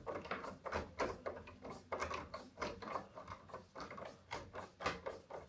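A screwdriver tightening the cylinder's fixing screw into a door lock's faceplate, giving irregular small metal clicks and scrapes about three or four times a second as the screw grips in.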